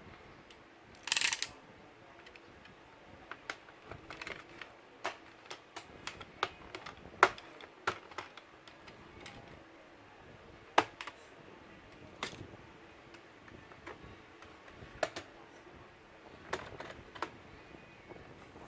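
Irregular sharp clicks and taps of small tools and the plastic case parts of a Lenovo Ideapad 110 laptop being handled during disassembly, with a short rattle about a second in.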